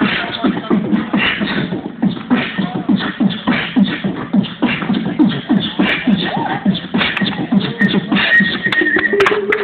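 Hip-hop break-dance music played over a small portable amplifier: a steady thumping beat, about two to three hits a second, with percussive vocal-like sounds on top. A held, slowly rising note comes in near the end.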